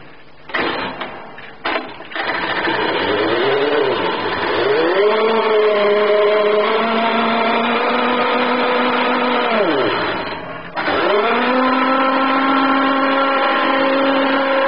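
Nikko Ford F-150 RC truck's small electric drive motor and gears whining as its wheels spin the rollers of a homemade roller test stand. After a few clicks the whine rises in pitch and holds steady. About ten seconds in it falls away, then quickly runs back up and holds steady again.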